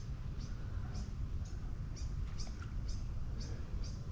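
A small bird chirping over and over, short high chirps about two or three times a second, over a steady low rumble of wind on the microphone.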